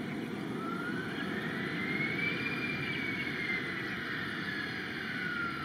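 Airbus A321 airliner's jet engines running as it rolls along the runway: a steady low rumble, with a single whine that rises in pitch and then slowly falls away.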